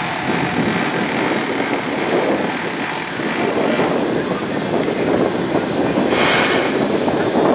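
Steady noise of street traffic, a dense continuous rumble with no single vehicle standing out.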